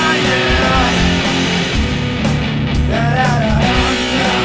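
Grunge-style alternative rock song playing: electric guitar, bass and drums, with a melodic line bending up and down in pitch over the top.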